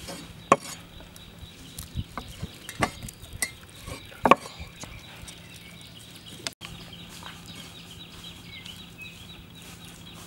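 Meat cleaver chopping raw chicken on a wooden chopping block: several sharp knocks in the first half, the loudest about four seconds in, then only the odd light tap.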